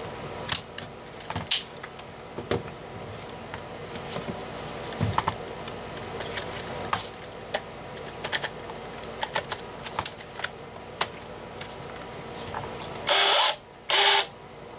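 Handling of plastic cordless power tools: scattered clicks and knocks over a faint steady hum, then two short loud bursts of noise about a second apart near the end.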